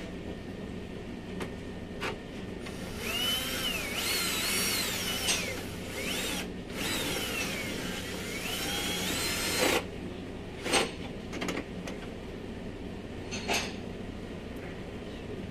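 Cordless drill-driver spinning screws on a car door's window regulator mounting, in several pulls of the trigger: its whine rises and falls in pitch, stops briefly past the middle, then cuts off. A few sharp clicks follow.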